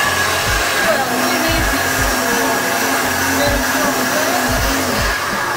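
A JTC OmniBlend V heavy-duty blender running steadily at speed, blending a tofu cream mixture smooth.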